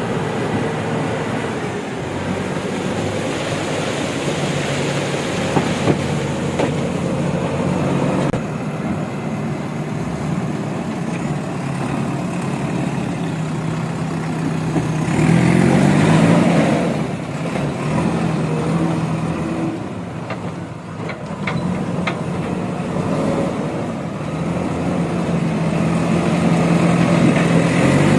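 Diesel engine of a JCB 3DX backhoe loader running under working load, revving up in pitch and level about halfway through before settling back, and building again near the end.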